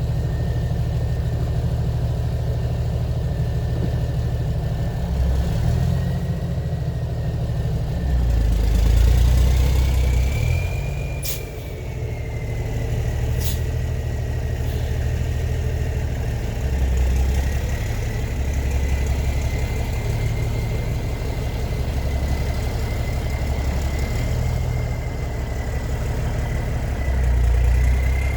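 Ford CL9000 truck's diesel engine idling with a low rumble that swells and eases every few seconds, and a faint wavering whine above it. Two sharp clicks come about halfway through.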